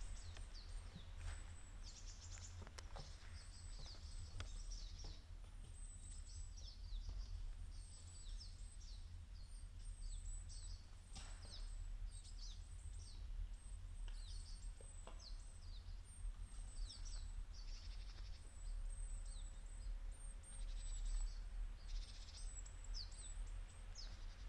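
Small birds chirping: many short, high, falling calls, repeated throughout, over a low steady rumble.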